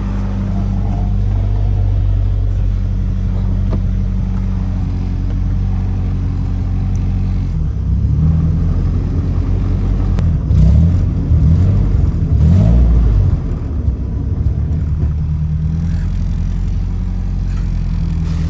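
Honda B20 four-cylinder engine idling steadily. About seven seconds in, a louder, uneven noise wavers for some six seconds, then the idle settles back: the odd noise the car makes when put in gear after the new clutch.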